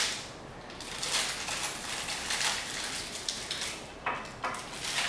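Crinkly plastic sweet wrapper being opened and unwrapped by hand, rustling and crackling on and off, with a sharp crackle at the start and a couple more about four seconds in.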